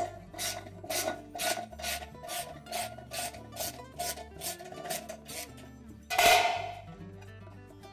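A ratchet wrench with an extension and socket clicks in short, even strokes, about two a second, as it backs out the bolts that hold a washer's tub bearing and seal assembly. A single louder rasp comes about six seconds in.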